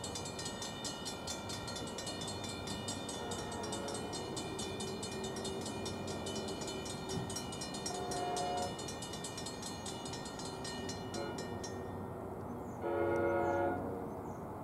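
Grade-crossing bells ringing rapidly, stopping about twelve seconds in, while an approaching train's horn sounds twice for the crossing: a short, fainter blast about eight seconds in, then a louder blast near the end.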